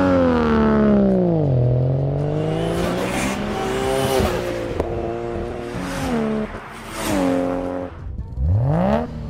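Turbocharged R34 Nissan Skyline GT-R engine revving, its pitch sliding down, climbing, then dropping suddenly several times before a sharp climb near the end. The sound comes from a Motorex demo GT-R fitted with the HKS T04Z single-turbo kit.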